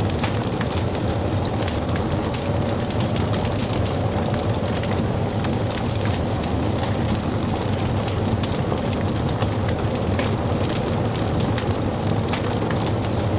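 Wood fire crackling, with many small sharp pops and snaps over a steady low rush of burning.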